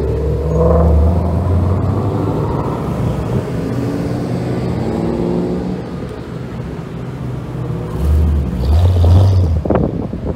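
Exhausts of Ford Mustangs driving past one after another, the engine note rising and falling with the throttle, loudest about a second in and again near the end.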